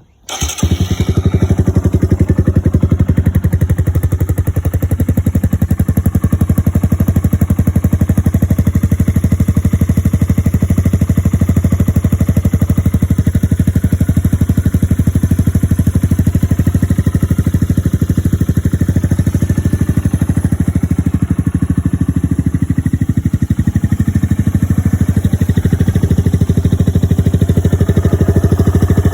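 Suzuki VanVan 200's single-cylinder four-stroke engine fires up at the very start and settles into a steady, even idle. It runs smoothly with its carburettor freshly stripped and cleaned, and the engine is described as in good health.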